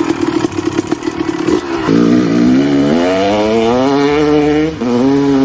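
An engine running with a rapid pulse, then accelerating with a steadily rising pitch. The pitch drops once near the end and climbs again, like a shift up a gear.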